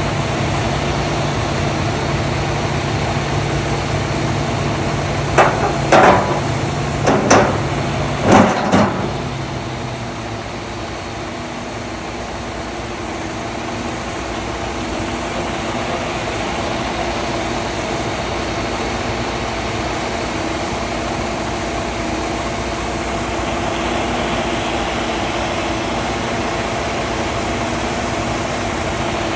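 Concrete mixer truck's engine running steadily. Three or four loud, short knocks come between about five and nine seconds in, and the engine's deep note drops away soon after.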